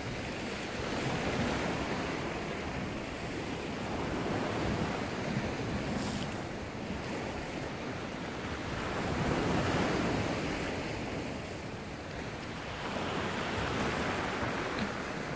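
Rough sea surging and washing against the rocks below, swelling and easing every few seconds, with wind buffeting the microphone.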